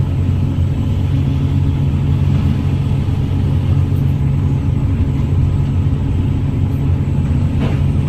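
Heavy diesel machinery at a mulch-grinding site, the grinder and excavator engines, running steadily and unbroken with a low-pitched sound.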